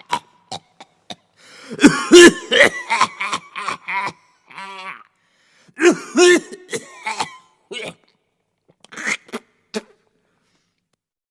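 A person coughing in several fits, with throat clearing and a throaty rasp, and spitting. The heaviest coughing comes about two seconds in and again about six seconds in, with a few short coughs after.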